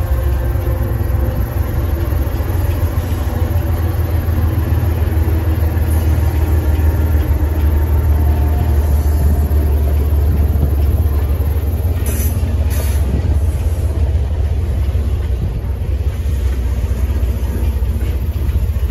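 Coal train rolling past. The mid-train GE ES44AC distributed-power diesel locomotive's engine is heard in the first few seconds, fading as it moves off, under a steady low rumble of coal cars on the rails. Brief high hissing about twelve seconds in.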